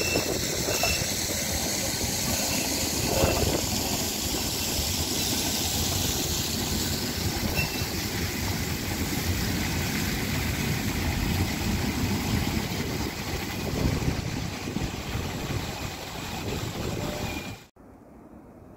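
Alstom TFS low-floor electric tram passing close by on street track: a steady rolling rumble and hiss of wheels on rail. Near the end the sound drops suddenly to quieter street sound.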